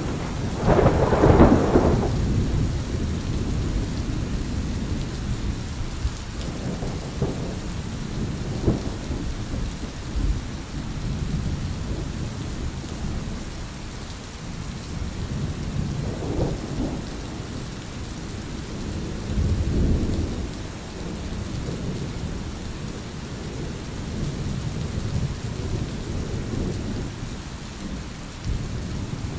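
Thunderstorm: thunder rumbling over steady rain, with a loud clap about a second in and several fainter rolls of thunder after it.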